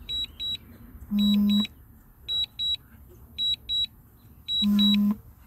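DJI Mini 2 remote controller's alert beeping: short high double beeps repeating about once a second, with a lower buzz twice. It is the warning that sounds during return-to-home under a strong-wind alert.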